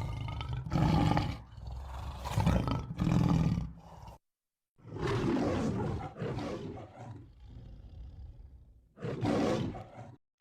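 A large animal roaring: a run of short roars about a second apart, a brief break about four seconds in, then a longer roaring call and one more roar near the end.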